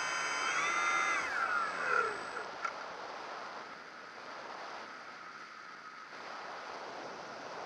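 A model aircraft's motor and propeller whine steadily, then wind down in pitch about a second in as the throttle is cut for a landing approach. After that comes a steady rush of air over the gliding plane, with a single light click near three seconds.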